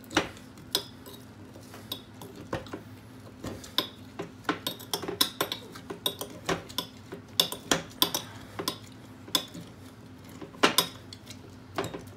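A spoon clinking and scraping against the inside of a glass mug as lime wedges and sugar are crushed together for a caipirinha, with irregular knocks, a few a second, some louder than others.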